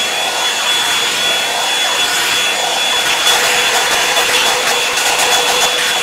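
Revlon One-Step paddle-brush hair dryer running on its highest setting: a steady high motor whine over a loud rush of air.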